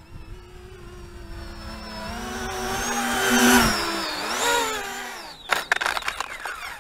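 Motor of an RC model jet, a MiG-29 replica, flying a low landing approach: its whine grows louder as it passes close, drops in pitch, surges briefly, then fades. About five and a half seconds in, clatters and scrapes follow as it touches down on the tarmac.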